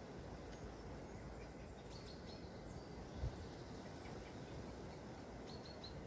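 Wind on the microphone, a steady low rumble. A small bird chirps three quick high notes about two seconds in and again near the end, and a brief low thump comes a little past the middle.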